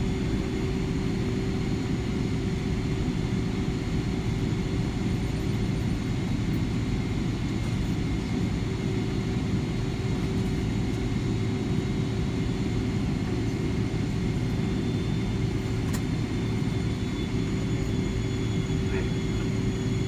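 Airliner cabin noise while the plane taxis after landing: a steady low rumble from the engines at idle and the rolling wheels, with a constant hum running through it.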